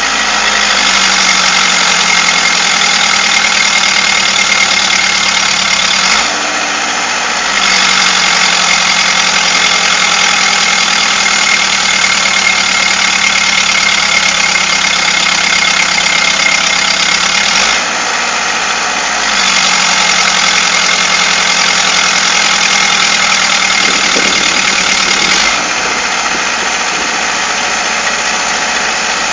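Excavator's engine running loud and steady. Its sound and level drop briefly twice, then drop again and stay lower near the end.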